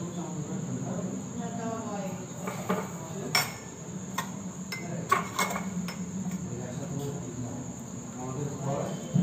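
Tea poured from a steel saucepan through a steel tea strainer into ceramic cups, with a few sharp metal clinks against the cups about three to five and a half seconds in. A cricket chirrs in a steady high trill behind it.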